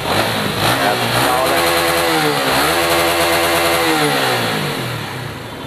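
Honda CBR150R's single-cylinder engine revved with the throttle, its pitch rising and falling twice before easing back down near the end. It is run so the freshly refilled coolant circulates through the cooling system.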